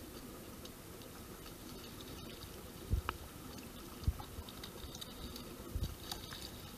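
Small waves lapping and splashing close to the microphone, with scattered small drips and a few dull low thumps, about three seconds in, four seconds in and near the end.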